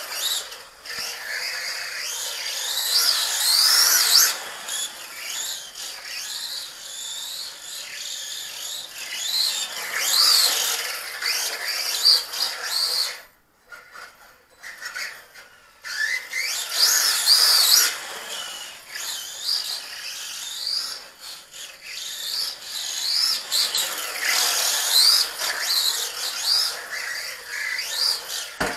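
Racerstar 2845 5900kv brushless motor of an LC Racing short course RC truck whining in repeated rising and falling sweeps as the throttle is worked. It drops away for about two seconds halfway through.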